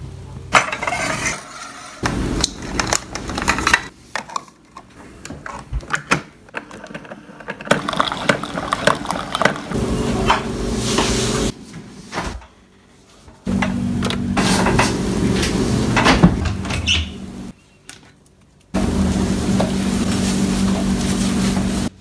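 Household sounds in short, abruptly cut clips: a first half of scattered clicks and clatter of things being handled, then a steady appliance hum in two stretches, each cut off suddenly.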